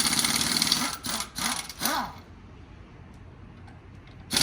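Pneumatic impact wrench rattling in a long burst, then two short bursts that spin down. A lull follows before it starts again right at the end.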